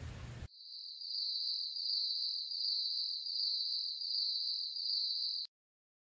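Insect trill, a steady high-pitched pulsing trill that starts abruptly about half a second in and stops abruptly near the end.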